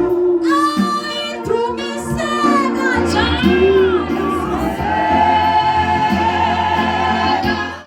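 Gospel choir singing over a steady bass accompaniment.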